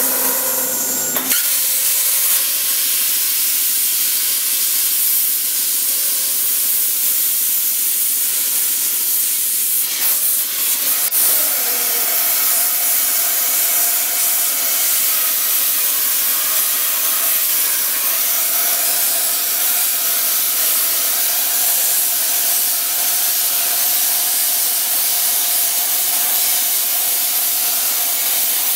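Plasma torch cutting through thick-walled square steel tubing: a loud, steady hiss of compressed air and arc, with a steady tone joining it about twelve seconds in.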